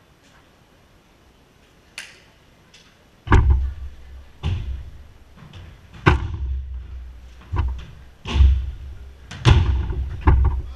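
Jorkyball being kicked and slamming off the walls of the enclosed cage: a run of hard slams and heavy thuds, about eight over ten seconds, after a quiet start.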